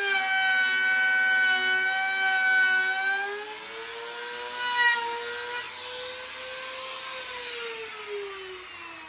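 Handheld trim router's high-speed motor whining as it cuts a groove along a wooden board, its pitch wavering slightly under load. It is louder for the first few seconds and quieter after. A sharp knock comes about five seconds in, and the whine sinks in pitch over the last couple of seconds.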